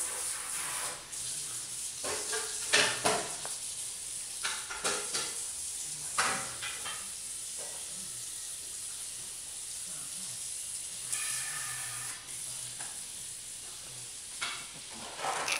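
Chihuahua puppies playing on bedding: short scuffles and rustles, several with a brief high squeak in them, over a steady hiss.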